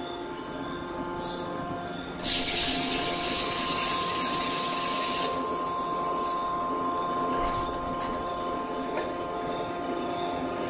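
Hydraulic die-forging hammer cell running with a steady machine hum and tones, broken by a loud spraying hiss that starts about two seconds in and lasts about three seconds. A shorter, fainter hiss and a quick run of light ticks follow later.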